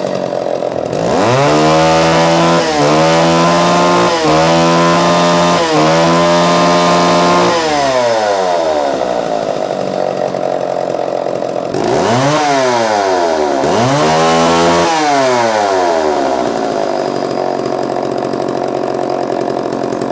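Vintage John Deere 50V two-stroke chainsaw running. About a second in it is revved to full throttle and held there, with three brief dips. It drops back to idle, is revved up twice more, then settles to a steady idle.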